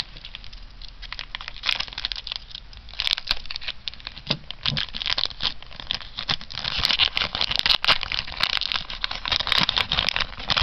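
A foil Weiss Schwarz booster pack being handled and torn open: crinkling and tearing of the foil wrapper, in short spells at first and most dense over the last few seconds.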